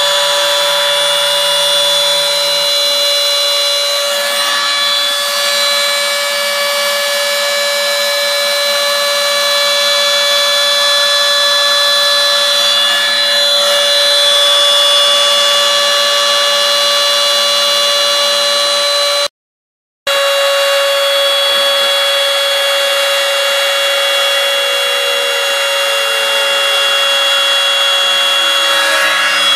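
A CNC mill's spindle runs with a loud, steady high whine as its bit cuts into soft florist's foam. The sound breaks off for under a second about two-thirds of the way through.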